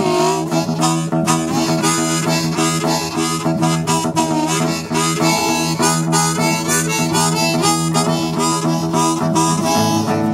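Blues harmonica solo, held and bent notes, played over a strummed acoustic guitar.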